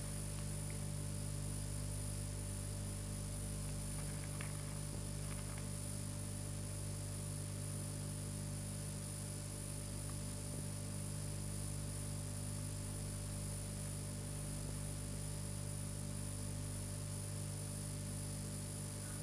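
Steady electrical hum and buzz with a faint high whine, the noise floor of an old film soundtrack, with a few faint ticks about four and five seconds in.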